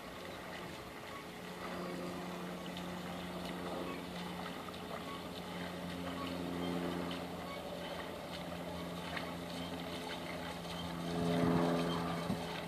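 Moped engine running at a steady low speed as the bike is pushed through floodwater, with water swishing and a louder swell about eleven seconds in.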